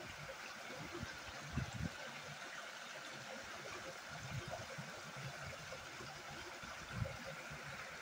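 Steady rushing of flowing stream water, with a couple of soft low thumps about one and a half seconds in and again near the end.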